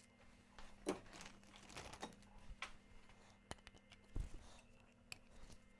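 Sparse light clicks, taps and rustles of small metal parts and plastic bags being handled, with a dull knock about four seconds in, over a faint steady electrical hum.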